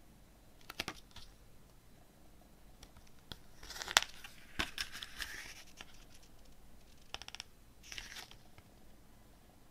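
Pages of a CD booklet being turned by hand: short paper rustles and slides with light clicks of fingers on the paper. The loudest page turn comes about four seconds in.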